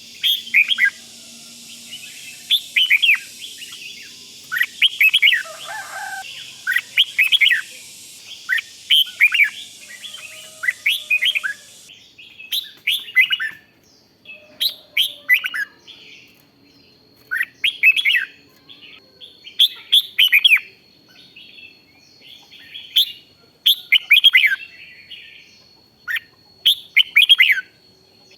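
Red-whiskered bulbul singing: short, quick phrases of sharp falling notes, repeated every second or two.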